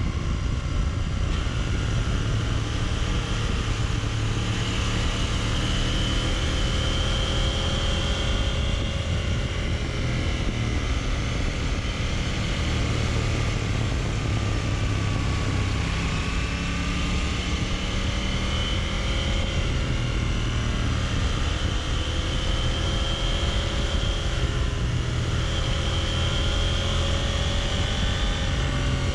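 Motorcycle engine running under way with wind rushing past the camera, the engine pitch rising and falling several times with the throttle through the bends.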